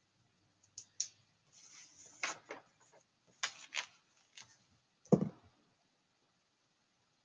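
Scattered faint clicks and short scratchy taps, then one louder thump about five seconds in.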